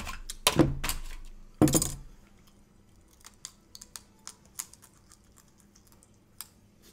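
Close-miked eating: two louder handling noises in the first two seconds, then soft clicks and smacks of a mouth chewing finger food, several a second.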